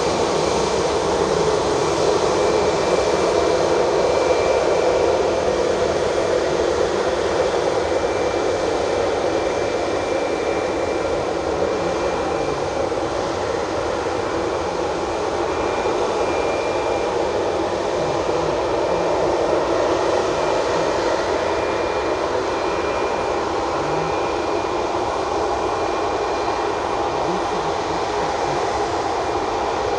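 Boeing 737-8 MAX's CFM LEAP-1B turbofan engines running at low thrust as the airliner taxis after landing: a steady jet rush with a faint high whine, easing slightly after the first few seconds.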